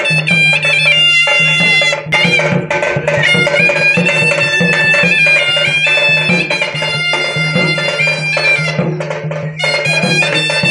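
Instrumental music: a reedy wind instrument plays a melody that steps from note to note over a steady low drone, with drum strokes.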